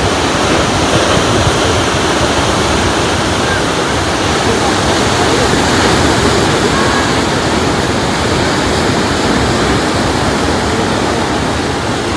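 Surf breaking and washing over a rocky shore: a steady, loud rush of ocean waves.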